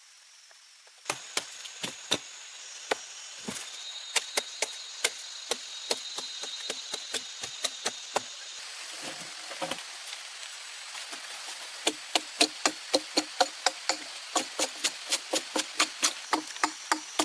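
A hand tool striking repeatedly, starting about a second in. The blows are uneven at first, then settle into a steady rhythm of about three a second near the end. A steady high insect drone runs behind them.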